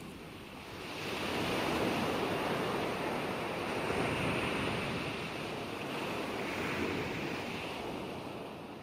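Ocean surf washing onto a beach, a steady rushing wash that swells about a second in and ebbs and rises slowly.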